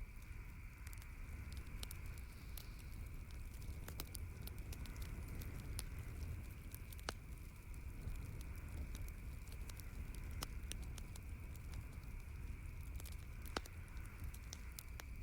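Campfire crackling: irregular sharp snaps and pops of burning wood, with a louder pop just after seven seconds and another near the end, over a steady low rumble.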